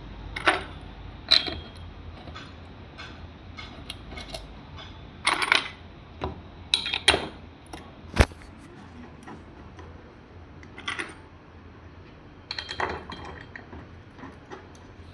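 Hand tools and metal parts clinking and tapping at irregular intervals, about a dozen separate sharp clicks and knocks.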